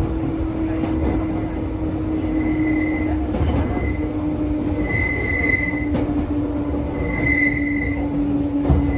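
Electric train running on curving track, heard from the driver's cab: a steady rumble and hum, with short high-pitched wheel squeals on the curve, the strongest about halfway through and again near the end.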